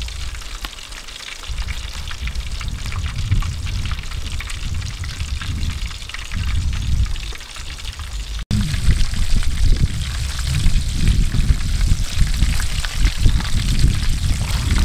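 Fish being pressed into breadcrumbs and flour on metal trays by hand, a fine crisp crackling and rustling. A gusty low rumble of wind on the microphone runs under it and grows louder after a brief dropout a little past halfway.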